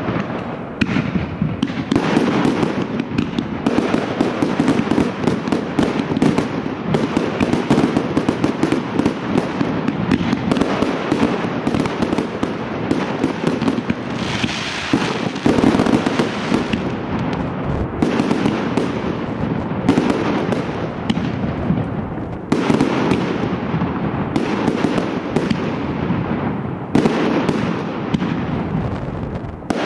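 Professional fireworks display: a continuous barrage of rapid, overlapping bangs and crackling from aerial shells and cakes bursting.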